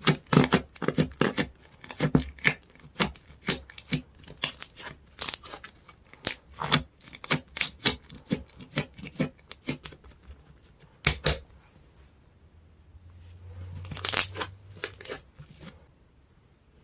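Hands working a tacky slime, making a quick run of sticky clicks and pops as it is pressed and pulled apart. Near the end there is one louder pop, then a short swelling squish.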